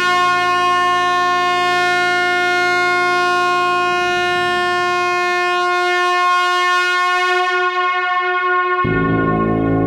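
Truck air horn sounding a long, steady, loud blast at one fixed pitch. About nine seconds in it switches abruptly to a deeper, fuller tone.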